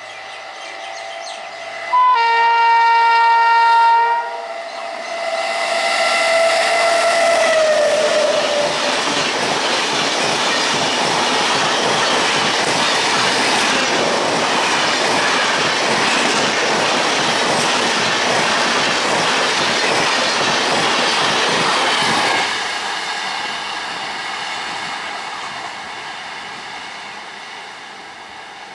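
An Indian Railways electric train sounds a loud horn blast about two seconds in, then sounds it again as it rushes past, the horn's pitch falling as it goes by. The noise of the wheels and coaches going past holds steady, then drops sharply about three quarters of the way through as the last coach clears, and fades away.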